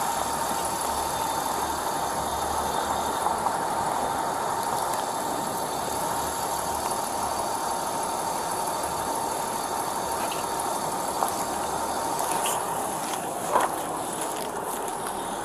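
Idling vehicle engine, a steady hum with a faint steady tone running through it. Two brief clicks come near the end.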